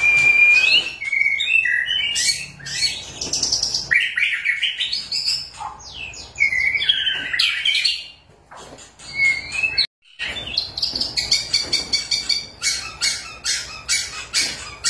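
White-rumped shama (murai batu) in full song: a varied string of loud whistled phrases that glide up and down, breaking off briefly about two-thirds through, then a fast run of clipped, chattering notes near the end.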